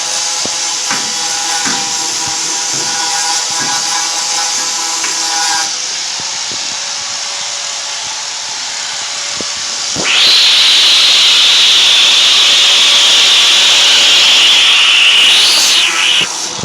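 Power grinder running against the rusted steel of a pickup bed, grinding the rust off, with a steady high whine and hiss. About ten seconds in it bites harder and gets louder and higher-pitched, then the pitch wavers just before the end.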